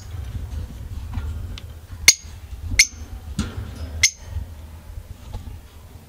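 Pet budgerigars giving short, sharp, high chirps, three of them about two, three and four seconds in, over a steady low rumble.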